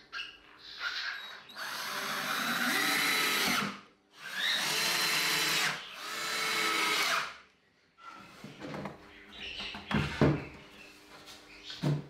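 Cordless drill-driver running in three bursts of about two seconds each, driving screws into pine boards; the second burst rises in pitch as the motor spins up. A few light knocks follow as the boards are handled.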